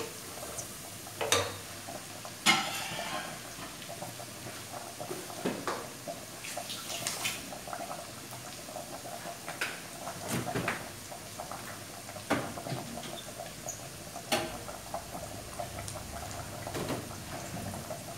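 Rice sizzling as it fries in rendered pork fat in a large aluminium pot, with scattered knocks and clinks of kitchenware, among them a wooden spoon stirring against the pot. The loudest knock comes about two and a half seconds in.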